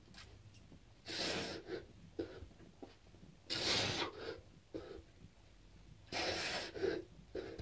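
A man breathing hard while doing push-ups: three loud, forceful breaths about two and a half seconds apart, each followed by one or two shorter, quieter breaths.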